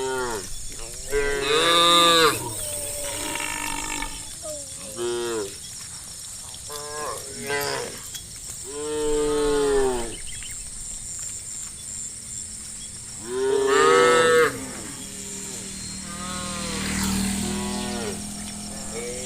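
A herd of cattle mooing, several cows calling one after another, with the two loudest moos about two seconds in and about fourteen seconds in.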